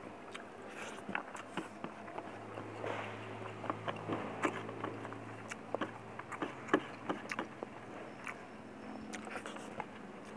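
Close-miked eating by hand: irregular crunchy clicks and crackles of chewing, with fingers picking food from a plastic container. A low steady hum sits underneath for a few seconds around the middle.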